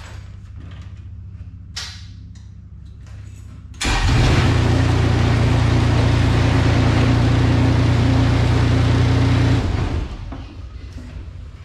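A Gianni Ferrari PG280DW 28-horsepower ride-on flail mower running. It hums low at first; about four seconds in it jumps suddenly to a loud, steady full run for about six seconds, then drops back to the lower hum.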